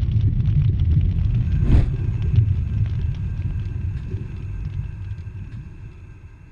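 Deep rumble of a large fire, with scattered crackles and a brief louder burst about two seconds in, fading away toward the end.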